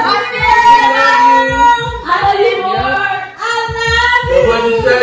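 A song: a woman singing with long held notes over a steady beat.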